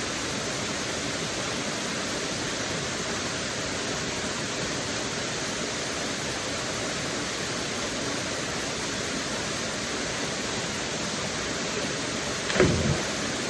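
Waterfall pouring steadily into a pool, with a sudden loud splash about a second before the end as a person jumps into the water.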